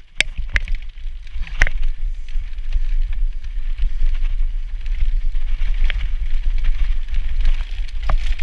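Santa Cruz V10 downhill mountain bike rolling fast over a dirt trail, with the hiss of knobby tyres on dirt and wind rumble on the action camera's microphone. A few sharp clicks and rattles from the bike come over bumps, mostly in the first two seconds and again near the end.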